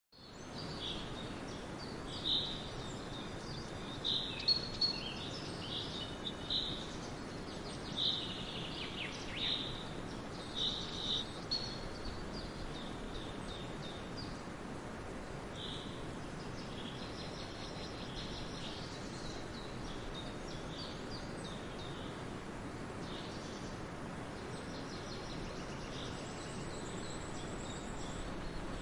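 Small birds chirping over a steady background hum, the calls coming thick and fast for the first dozen seconds and thinning out after.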